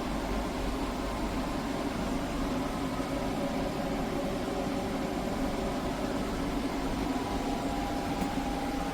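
KGOGO 4-in-1 portable air conditioner running: a steady fan rush with a constant hum.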